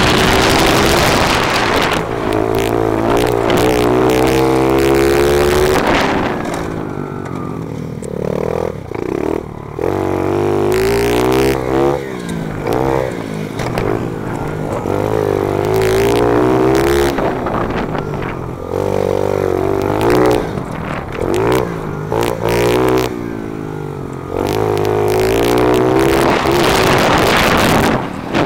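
Pit bike's small four-stroke single-cylinder engine with an FMF exhaust, revving up hard along the straights and backing off into the corners, over and over. There are longer quieter spells about a third of the way in and again shortly before the end, after which it winds back up to full revs.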